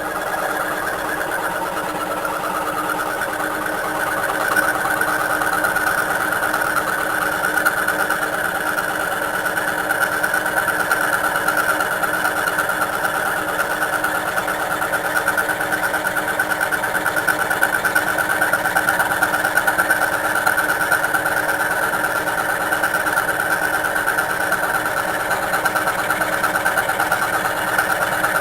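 Homemade scroll saw running steadily with a rapid reciprocating blade stroke, sawing through steel angle about 2 mm thick. A little louder from about four seconds in.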